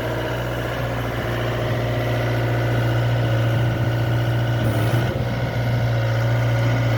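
2018 Hitachi ZX65USB-5A excavator's diesel engine idling steadily, with a brief change in its note about five seconds in.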